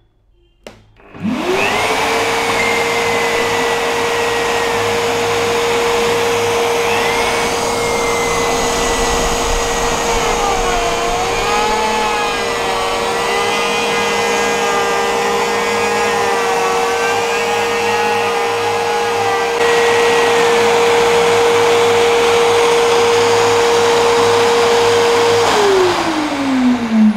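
A Bosch plunge router and a Bosch GAS 15 PS wet/dry extractor start together, because the extractor switches on automatically through its power-tool socket. They run with a steady high whine over a rush of suction air, and wavering tones come in as the router bit cuts the wooden frame. Near the end the router is switched off and the whine winds down.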